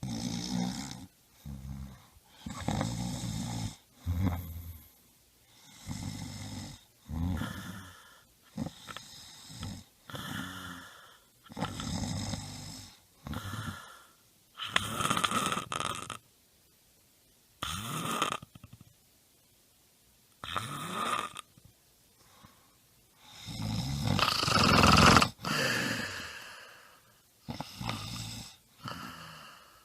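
A person snoring: a run of short snores about every one to two seconds with silent gaps between them, a longer pause in the second half, then the loudest and longest snore about 24 seconds in.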